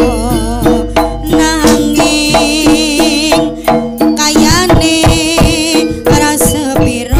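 Jaranan gamelan music played live. Hand drums beat a quick, driving rhythm over steady ringing gong-chime tones, and a wavering high melody runs on top.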